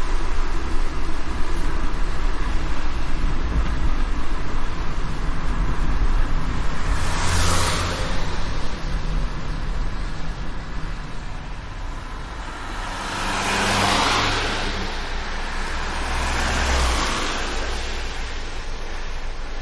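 Driving in the rain: a car's steady low road and engine rumble under the hiss of rain and wet tyres. Three swells of spray hiss rise and fade, about a third of the way in, past the middle, and near the end, and the low rumble eases after the last one.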